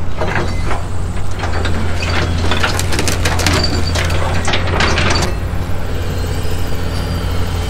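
Heavy construction machinery running with a steady low rumble, with a run of knocks and clatters over the first five seconds or so, typical of excavators breaking up and moving concrete rubble.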